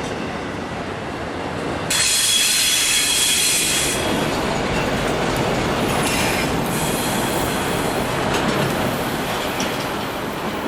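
Freight train cars rolling past on the rails with a steady rumble. About two seconds in, the wheels break into a high-pitched squeal that comes and goes over the next several seconds.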